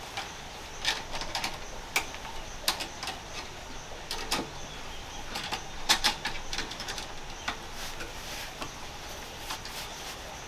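A series of irregular clicks and light knocks, most of them in the middle of the stretch, over a steady faint background hiss.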